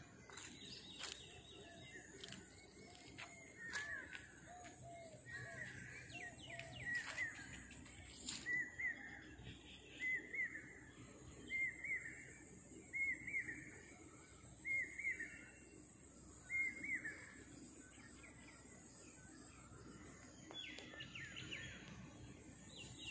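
Birds calling outdoors: one bird repeats a short rising-and-falling call about every second and a half through the middle stretch, with a few lower notes early on and other calls near the end, over a faint steady high tone.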